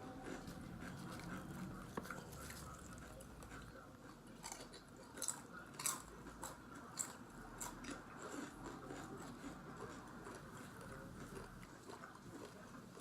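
Someone chewing crunchy kettle-cooked potato chips, with scattered sharp crunches that come most often in the middle.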